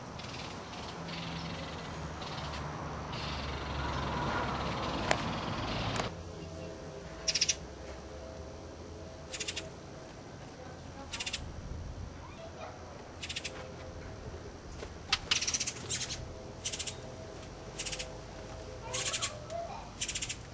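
Goldfinch nestlings begging: short, high-pitched buzzy calls repeated every second or two, starting about six seconds in. Before that, a steady rushing noise that cuts off.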